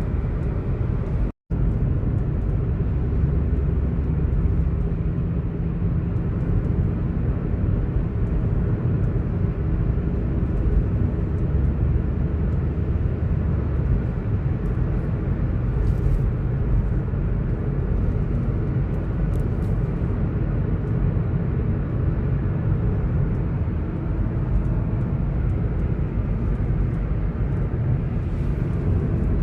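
Honda City driving at speed: steady engine and road rumble. The sound cuts out for an instant about a second and a half in.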